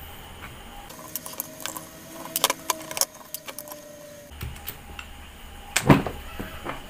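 Angle grinder screws and plastic housing parts clicking and clinking as the tool is taken apart by hand. There is a run of light clicks in the first half and one louder knock about six seconds in.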